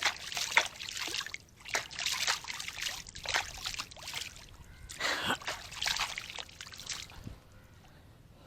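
Water splashing and trickling in irregular bursts, dying away about seven seconds in.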